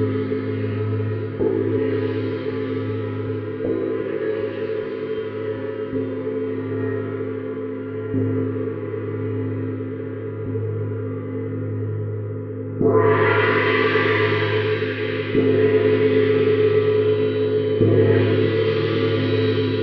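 Neptune gong played with a soft mallet: a sustained wash of many steady tones over a deep hum, kept going by light strokes every few seconds. About two-thirds of the way through, a harder stroke makes it swell suddenly louder and brighter, followed by more strokes that keep it up.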